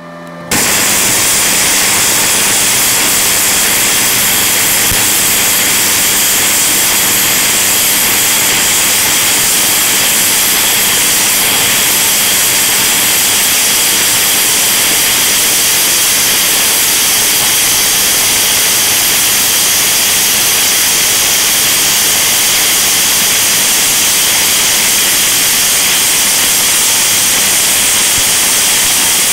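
Gasless flux-core wire welding with a Parkside PIFDS 120 A1 inverter welder on 6 mm steel: the arc strikes about half a second in and sizzles steadily and loudly without a break.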